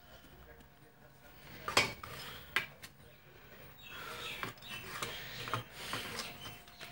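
Small metal tools clicking and scraping against an electronics circuit board while a replacement transistor is being fitted: a few sharp clicks about two seconds in, then scraping and rubbing with more clicks from about four seconds in.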